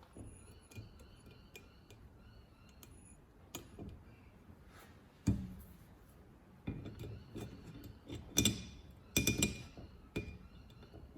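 Small steel parts and hand tools clinking and knocking against the bare cylinder head and bench as the valve stem seals are worked off with pliers. Scattered sharp clicks with brief metallic ringing, growing busier in the last few seconds.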